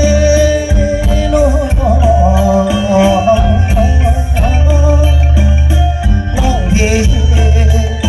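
Amplified mor lam music: a male singer's long, wavering, ornamented vocal line over a steady bass and quick jingling percussion.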